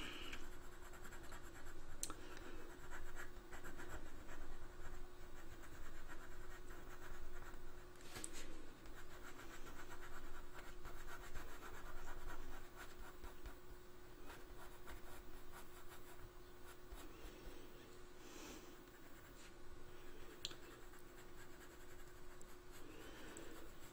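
Coloured pencil scratching lightly on drawing paper in short, quick shading strokes, fainter after about halfway.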